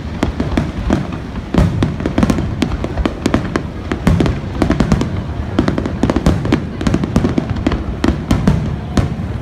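Aerial firework shells bursting in a dense, continuous barrage of booms and sharp cracks, many going off each second.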